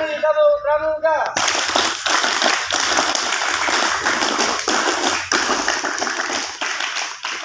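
Voices for about the first second, then a large group of seated students clapping their hands together in applause.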